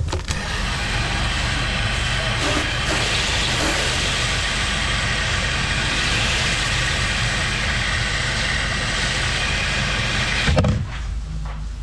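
A 10.5 GPM pressure washer spraying: a steady hiss of high-pressure water over the running engine's hum, cutting off near the end with a short thump.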